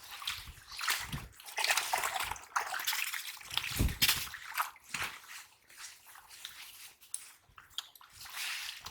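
Water sloshing and splashing in irregular bursts, with a few low thuds, the loudest about four seconds in.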